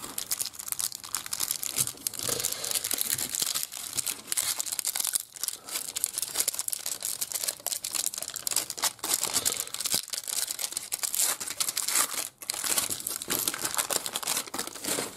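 Foil wrapper of a trading card pack crinkling and tearing as it is opened and handled, a dense crackle that stops at the end.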